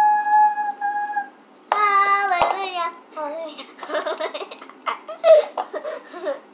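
A girl's voice holding one long, steady high note, then a shorter note sliding downward, followed by short bursts of playful vocal sounds and babble.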